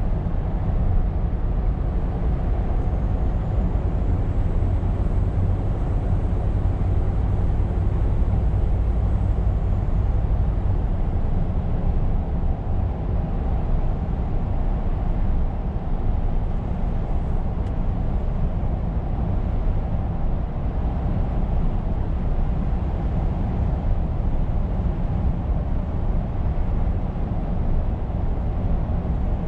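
Scania R520 truck with its V8 diesel driving along at a steady pace: a low, even engine drone mixed with tyre and road noise.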